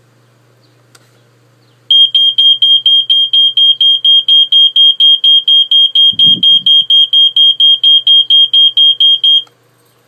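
A Family Gard FG777D (BRK-made) ionization smoke detector's piezo horn is sounding on its test button. It gives a loud, high-pitched rapid beeping at one steady pitch, about four to five beeps a second. The beeping starts about two seconds in and stops shortly before the end.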